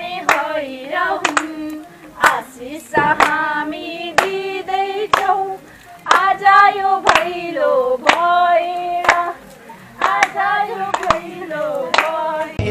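A group of women singing a Bhailo folk song together, clapping their hands in time with the song. The song goes in phrases of held notes with short breaks between them.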